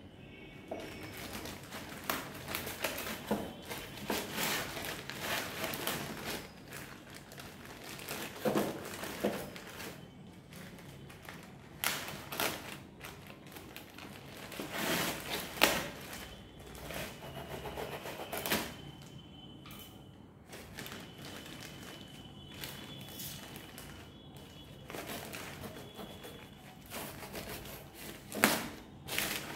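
Hands handling an impact drill kit and its packaging: irregular clicks, knocks and rustling of box and case, with louder thunks near the middle and near the end.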